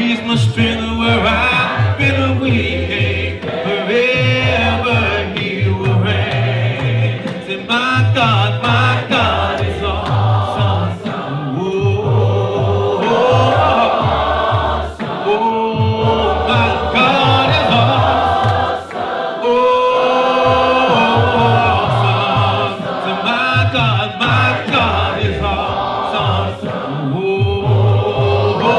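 Gospel choir and worship band performing a praise song: group voices hold and glide through sung lines over a steady, pulsing bass accompaniment.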